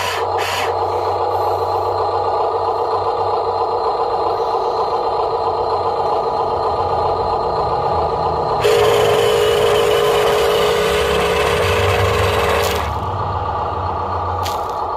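Huina RC dump truck's electric drive motor and gearbox whining steadily as its rear tandem wheels spin in sand. It gets louder and higher for about four seconds past the middle, then settles back.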